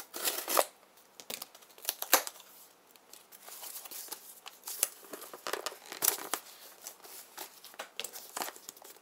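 A small cardboard shipping box being opened by hand: packing tape tearing and packaging rustling and crinkling in irregular bursts, loudest near the start and about two seconds in.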